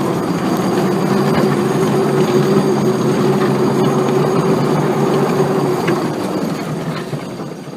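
Vehicle engine droning steadily under a haze of running noise, fading away near the end.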